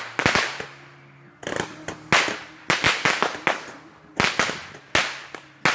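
Consumer fireworks going off: about a dozen sharp bangs at uneven intervals, each trailing off briefly.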